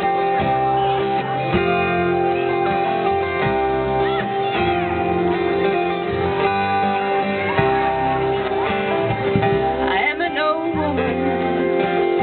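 Live acoustic guitar and bass guitar playing a slow country-folk tune, the bass moving between low notes under the strummed guitar.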